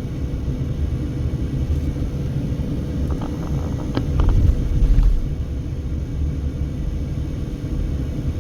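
Low rumble of a car driving, heard inside its cabin, swelling louder for about a second around four seconds in.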